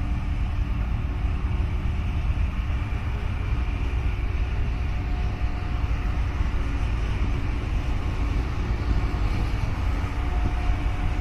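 A ship's engine droning steadily over a heavy low rumble, with a faint constant hum on top.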